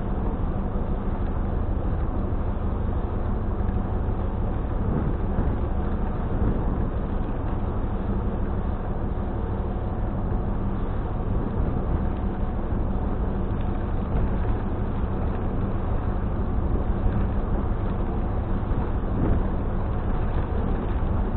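Steady engine drone heard from inside a vehicle's cabin: a constant low hum with a few held tones, unchanging throughout.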